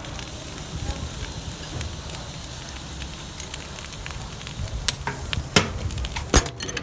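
Hot steel held in tongs hissing and sizzling as water is poured over it to quench it, with a few sharp knocks in the last two seconds.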